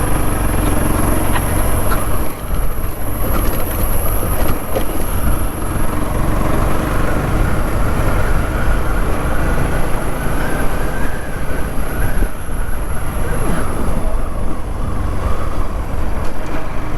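Motorcycle on the move, with its engine running steadily under a heavy, continuous rumble of wind on the microphone.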